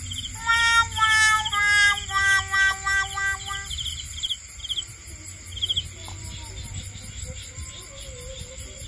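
Night insects, crickets among them, chirping in a fast repeated rhythm over a steady high insect buzz. For the first few seconds a louder animal call sounds over them, a string of short pitched notes that step up and down.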